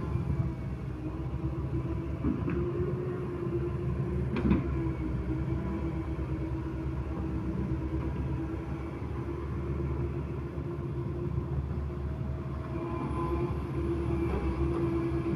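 Komatsu hydraulic excavator running steadily while digging soil: a continuous low engine rumble with a steady hum over it, and a single knock about four and a half seconds in.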